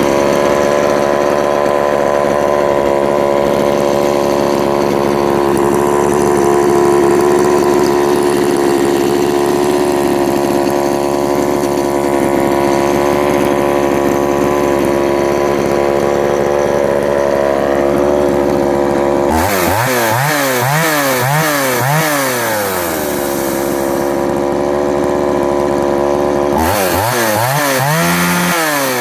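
Poulan 3400 two-stroke chainsaw engine running at a steady speed. Twice, the throttle is blipped rapidly, the pitch rising and falling about twice a second for a few seconds: once about two-thirds of the way through and again near the end.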